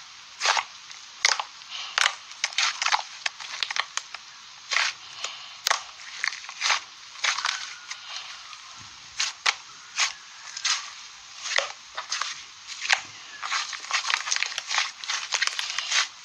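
Irregular crunching and crackling: crisp, sharp snaps coming several times a second, some louder than others.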